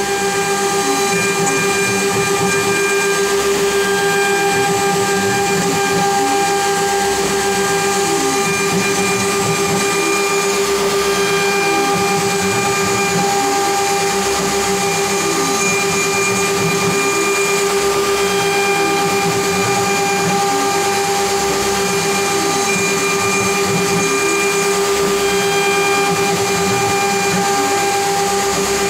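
CNC router spindle running steadily with a two-flute ball end mill taking a fine contour pass in wood: a constant high-pitched whine over the hiss of the cut.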